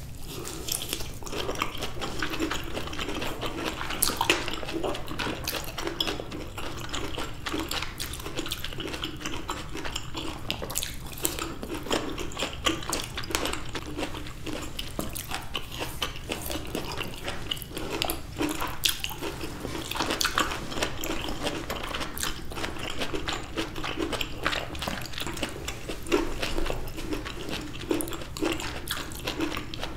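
Juicy blood orange wedges being bitten, sucked and chewed close to the microphone. The sound is made up of many small wet clicks and crackles, with no pause.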